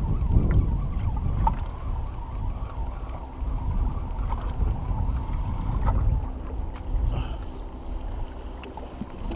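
Wind rumbling on the microphone aboard a drifting jon boat on choppy water: a steady, uneven low rumble with a few faint ticks.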